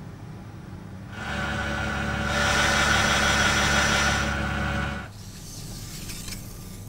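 A machine running steadily with a hum and a whine. It grows louder about a second in and drops back about five seconds in.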